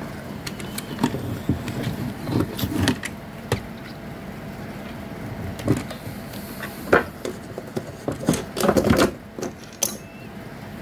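Hands handling the opened plastic body of a toy steam locomotive: scattered clicks, taps and rustles of plastic parts, with a sharp knock about seven seconds in and a short clatter soon after. A faint steady hum runs underneath.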